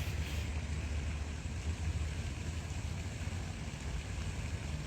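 Steady low rumble of outdoor background noise with an even hiss above it; nothing stands out.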